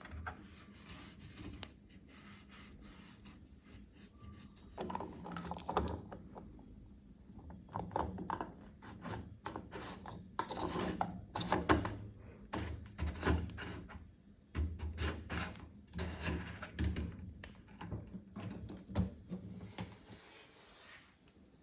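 A washing machine being scrubbed by hand: irregular rubbing and scraping strokes, louder and denser from about five seconds in.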